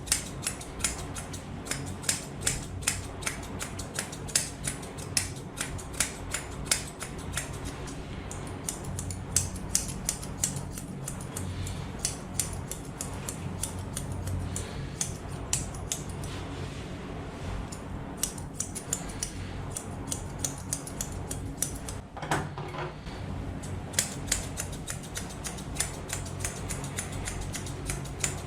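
Grooming scissors snipping a Pomeranian's fur in quick runs of sharp snips, which thin out for several seconds in the middle, over a steady low hum.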